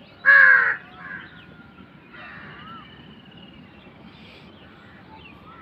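A crow cawing: one loud, harsh caw just after the start, followed by fainter bird calls and a thin whistle.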